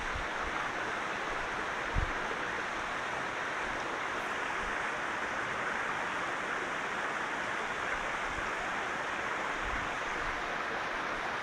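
Steady rush of a shallow mountain stream running over stones, with one brief low bump about two seconds in.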